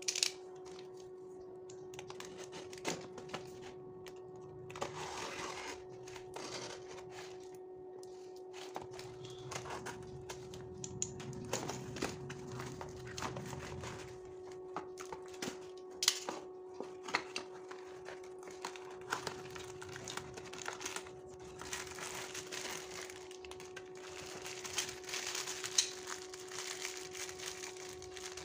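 A cardboard parcel being opened with a snap-off utility knife: scattered clicks and knocks as the blade and box are handled, with stretches of scraping, tearing and rustling cardboard and packing, and plastic wrapping crinkling near the end. A faint steady hum runs underneath.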